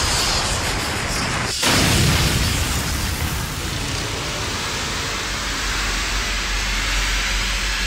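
Cartoon sound effect of crackling electrical energy over a deep, continuous rumble. It cuts out for a moment about one and a half seconds in, comes back louder, then settles into a steady rumble.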